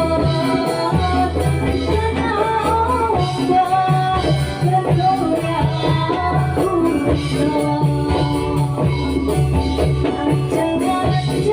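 Ndolalak dance music: a melody line over a steady, repeating drum and frame-drum beat with jingling percussion.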